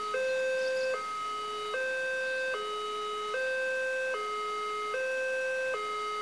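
Railway level-crossing warning alarm sounding its two-tone signal, a higher and a lower tone alternating evenly, each held just under a second. It warns that a train is approaching and the barriers are closing.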